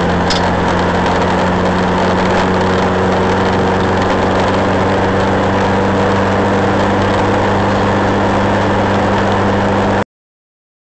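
Nissan 1400 drag car's engine running at steady revs, heard from inside the cabin, with no revving up or down; the sound cuts off suddenly near the end.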